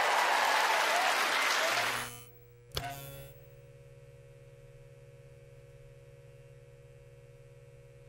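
Theatre audience applauding, fading out about two seconds in. A single click follows, then a faint steady electrical hum.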